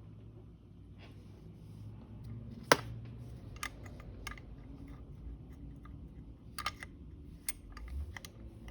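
Small metal parts being handled: scattered clicks and taps, one sharp knock about three seconds in, as a greased lever is fitted into a valve body.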